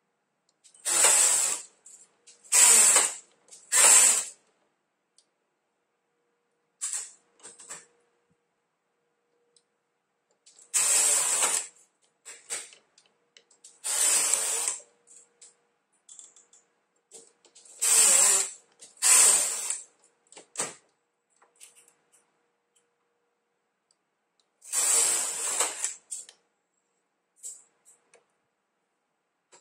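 Silver Reed SK830 knitting machine carriage pushed back and forth across the needle bed, each pass a short sliding rasp of about a second. About eight passes, several in quick succession, with pauses between groups.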